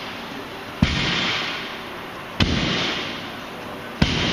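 Barbell loaded with 45-pound plates and 10-pound bumpers hitting the gym floor at the bottom of each deadlift rep: three impacts about a second and a half apart, each followed by a ringing tail that fades over about a second.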